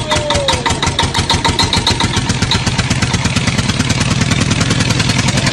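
Small engine running with a rapid, even putter of about ten pulses a second and a low hum that grows stronger after about two seconds.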